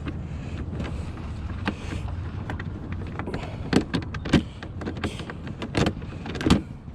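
Handling an RC speedboat: a run of sharp clicks and knocks as parts are taken off the hull, the loudest about four seconds in and near the end, over a steady low rumble.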